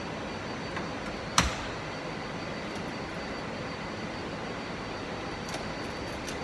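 A door swinging shut with one sharp bang about a second and a half in, its armature plate meeting the overhead electromagnetic door lock, over a steady hiss of background noise. A few faint clicks follow near the end.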